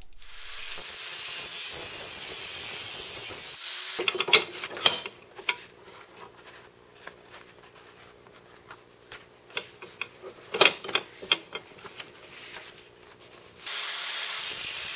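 Angle grinder's abrasive cut-off wheel cutting a slot into a steel railroad spike, a steady gritty hiss. It stops about four seconds in, followed by a few metal clanks and scattered clicks as the piece is reset in the vise, and the cutting starts again near the end.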